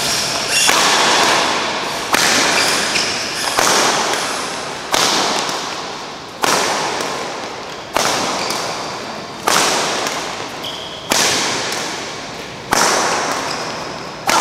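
Badminton racket striking the shuttlecock in a drill, a sharp crack about every one and a half seconds, each ringing out in the hall's long echo.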